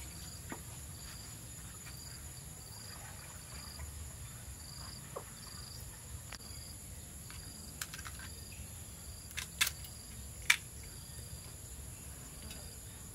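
Insects, crickets among them, keep up a steady high-pitched drone, with a short chirp repeating at an even pace. A few sharp clicks break in, the two loudest about ten seconds in.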